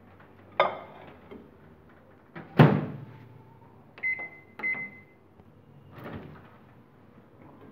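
Microwave oven being set going: a click, then the door shutting with a knock, the loudest sound, followed by two short keypad beeps and another click.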